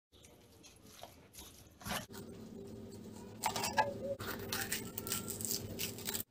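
Kitchen knife cutting tomato and green pepper on a plastic cutting board: a run of cuts, scrapes and taps, loudest in the second half, over a low steady hum.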